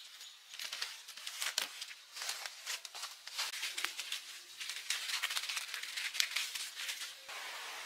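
Irregular rustling and crackling, a dense run of small sharp clicks. About seven seconds in it gives way to a steady hiss.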